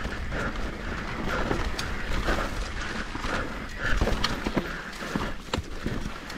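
Mountain bike riding down a dirt singletrack, heard from a camera on the bike or rider: a steady rumble of tyres and wind, with rattles and sharp knocks of the bike over bumps that come more often from about four seconds in.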